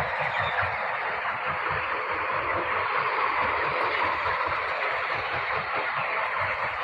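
Constant massed chirping of a crowded flock of broiler chickens about 24 days old, blending into a steady hiss, with a low fluttering rumble beneath.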